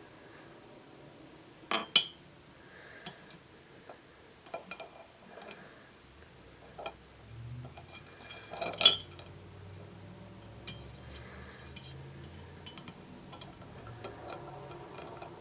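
Plastic Rubik's Cube pieces clicking and knocking against each other and against the glass of a jar while the cube is put together inside it: scattered light clicks, with two sharp knocks about two seconds in and another near nine seconds.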